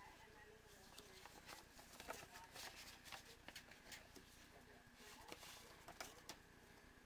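Faint rustling and crinkling of a paper envelope as a greeting card is slid out of it, in irregular small crackles that die away near the end.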